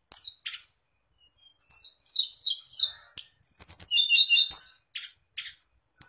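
A caged sulingan gunung, a small mountain flowerpecker, singing: a few high chirps, then from about two seconds in a fast, high twittering run of sliding notes, ending with two short single notes.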